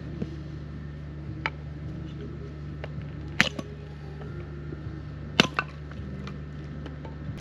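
A small hatchet splitting firewood into kindling: sharp chopping strikes on wood, the loudest about three and a half seconds in and a quick pair a little after five seconds, with lighter taps between. A generator hums steadily underneath.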